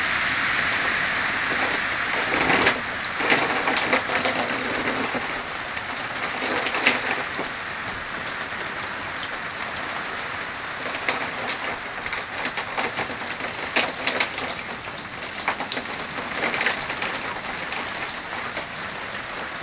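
Steady rain falling on wet ground and foliage, with frequent sharp drops tapping close by.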